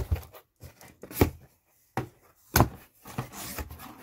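A delivered parcel being opened by hand: packaging rustling and tearing, with two sharp knocks about a second and a half apart.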